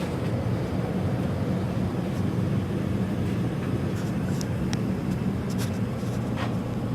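Gas water heater burners firing, a steady low rumble during a draft test, with a few faint clicks.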